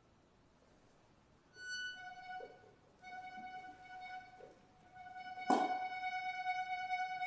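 Accordion holding a single high note with many overtones. It enters after about a second and a half of near silence, breaks off briefly twice, and gets a sharp noisy accent about five and a half seconds in.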